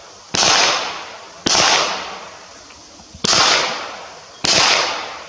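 Four gunshots at uneven intervals of one to two seconds. Each is a sharp crack followed by a long echoing tail that fades over about a second.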